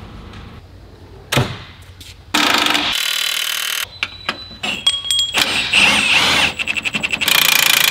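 A cordless impact wrench running on a bolt under a truck frame, going into rapid hammering near the end, among knocks and clanks of tools and parts being worked off the chassis.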